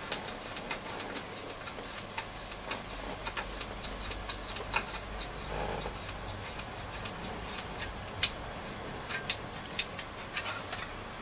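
Irregular light clicks and taps of small parts and tools being handled on a transistor radio chassis, a few each second with no steady rhythm.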